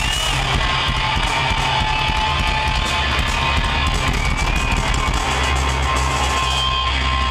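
Heavy metal band playing live, electric guitar to the fore over a steady, heavy bass end.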